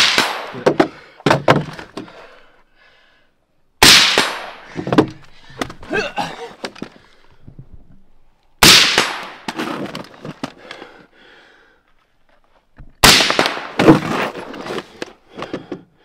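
Mk 18 carbine firing: four loud rifle shots, roughly four to five seconds apart, each followed by a fading echo and a few quieter sharp cracks.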